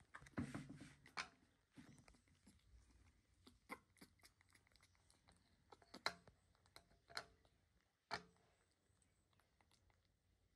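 Near silence broken by faint tearing and clicking sounds of food being peeled and handled, with a short cluster in the first second and single sharp clicks every second or two after, the last about eight seconds in.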